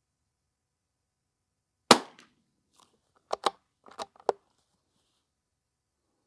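A single shot from a Ruger American Rimfire .22 LR rifle, a sharp crack about two seconds in, followed a second or so later by a quick run of metallic clicks as the bolt is worked to eject the case and chamber the next round.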